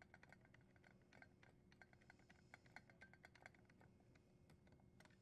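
Faint, rapid metallic clicking as a nut driver turns a screw into a dishwasher's metal junction box cover, the clicks thinning out after about three and a half seconds.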